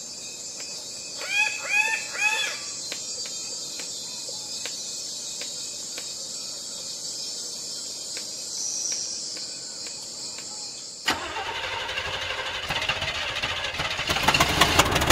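Steady high drone of rainforest insects, with three quick arched bird calls about a second and a half in. About eleven seconds in, this gives way to a vehicle engine running, getting louder and rattling near the end.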